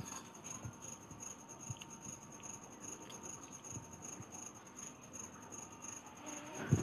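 Faint, scattered clinks and scrapes of a steel fork against a steel plate as noodles are twirled and lifted, with soft eating sounds between. A louder knock comes right at the end.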